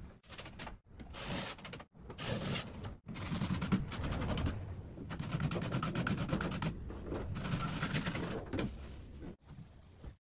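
Scraping and rubbing of gloved hands and a metal edge trim against drywall panel edges, in irregular stretches that cut off abruptly several times.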